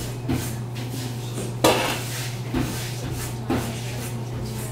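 Baker's long-handled peel knocking and clattering against a deck oven while loaves are loaded: four sharp knocks, the loudest a little over a second and a half in, over a steady low hum.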